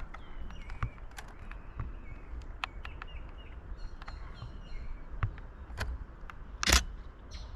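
Small birds chirping over outdoor background noise, with scattered sharp clicks and one louder sharp sound near the end.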